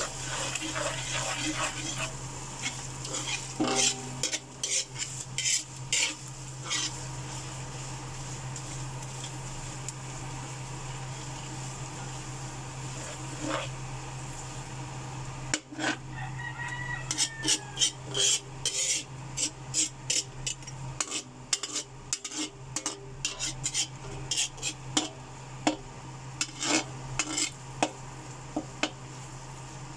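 Metal spoon scraping and clinking against a wok as it stirs shrimp paste frying in oil with onion, garlic, ginger and chilies, over a steady light sizzle. The scraping strokes come thicker in the second half.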